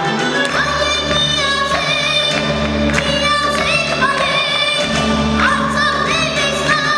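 Armenian song performed live: a boy singing a high, ornamented melody into a microphone over instrumental backing music with a steady bass line, a choir behind him.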